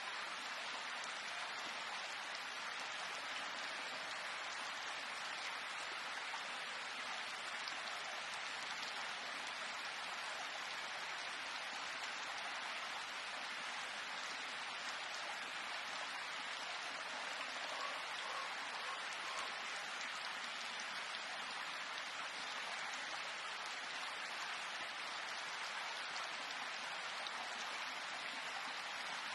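Rain falling steadily, an even wash of drops that does not let up.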